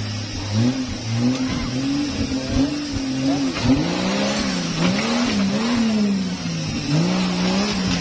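Off-road competition 4x4's engine revving up and down under load as it climbs a muddy bank. The pitch rises and falls again and again as the throttle is worked.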